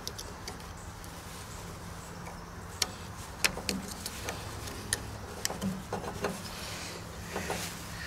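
Scattered small clicks and taps of hands working a pickup truck's taillight bulb and its plastic socket out of the holder, over a faint steady low hum. The clicks come mostly in the middle of the stretch, a few a second.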